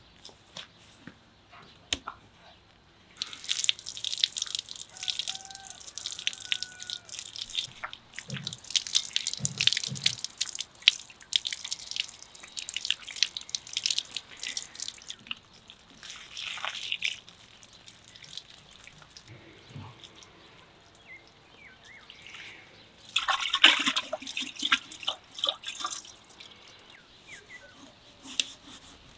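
Water from a garden hose splashing and dripping onto a raw whole lamb carcass as it is rinsed by hand. The splashing is dense and irregular from a few seconds in until about halfway, then a shorter, louder burst comes later.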